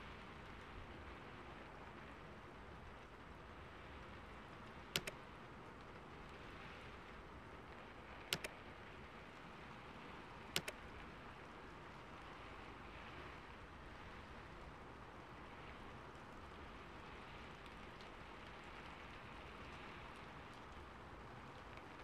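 Three sharp double mouse clicks, a few seconds apart, from an on-screen like, subscribe and bell animation, over a faint steady hiss.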